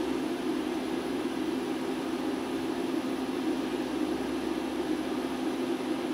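Steady machine hum from the CNC milling machine while the tool is touched off, with one constant low tone and a faint high whine, no change throughout.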